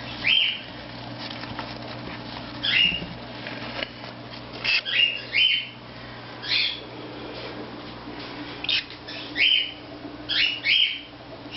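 Whiteface cockatiel chick calling: about a dozen short, sharp calls at irregular intervals, some coming in quick pairs, over a faint steady hum.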